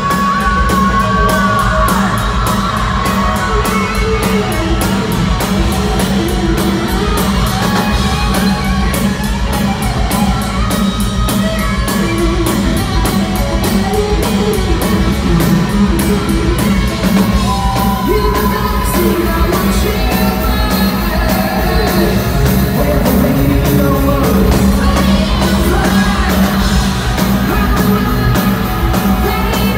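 Live hard rock band playing loud: pounding drums, electric guitars and a male singer's high vocals, with a long held high note at the start.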